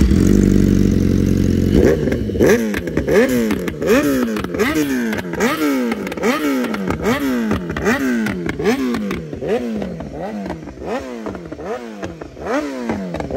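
BMW S1000RR four-cylinder sportbike engine breathing through an Akrapovič exhaust. It runs steadily for about two seconds, then is revved in a long run of quick throttle blips, the pitch climbing and falling back nearly twice a second.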